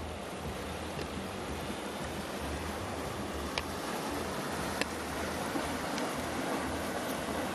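Inland motor cargo barge passing close by: a steady low engine rumble under the wash of its bow wave along the canal wall, with a couple of faint clicks about halfway through.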